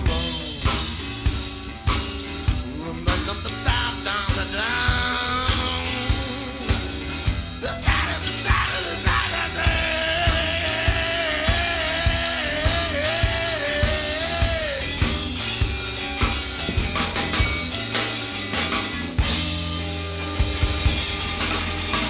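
Live rock band playing: drum kit, electric guitars and a male voice singing. Around the middle a long note is held and wavers before falling away.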